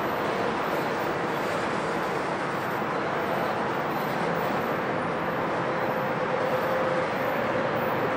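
Freight train's open-top cars rolling past on the rails, a steady rolling noise of wheels on track with a faint steady whine underneath.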